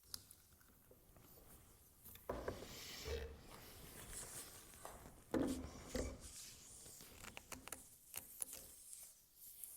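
Bench work during a glue-up, pieces of wood and clamps being handled: a few soft knocks, the loudest about five and a half seconds in, among small clicks and rustles.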